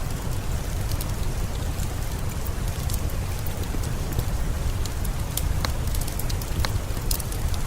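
Steady rain falling, with scattered sharp pops and crackles from a wood fire burning in a fireplace.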